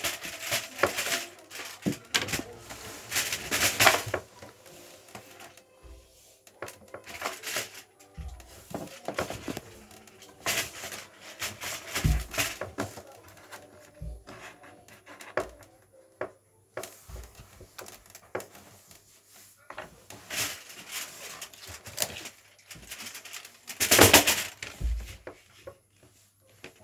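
Cardboard advent calendars and their packaging being handled: irregular rustling, crinkling and small knocks. It is loudest in the first few seconds and again about 24 seconds in.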